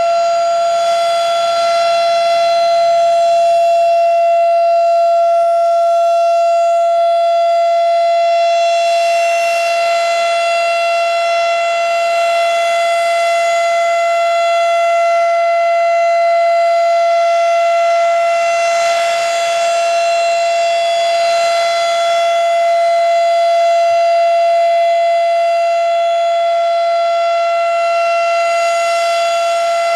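Federal Signal RSH-10A Thunderbeam siren sounding the steady Alert tone for a test: one held, unwavering pitch. Its brighter upper tones swell and fade about every ten seconds as the rotating head sweeps past.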